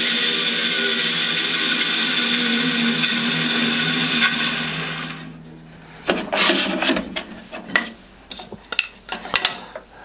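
A Charnwood B350 14-inch bandsaw runs freely with no wood in the blade, a steady machine hum. About four seconds in it is switched off and the hum dies away over about a second as the blade coasts down. After that, hands slide along the rip fence and shift pieces of pine on the saw table, a few rubs and light knocks.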